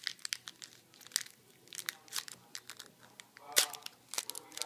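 Foil wrapper of a Pokémon trading card booster pack crinkling and tearing as it is ripped open by hand: a run of sharp crackles, busiest near the end.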